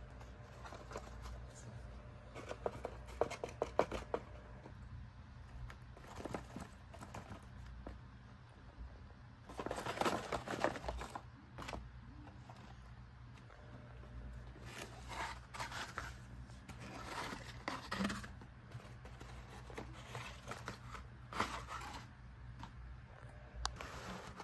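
Paper and cardboard bus models being handled: irregular rustling and scraping as the boxes are moved and slid along a cloth, with a few light taps.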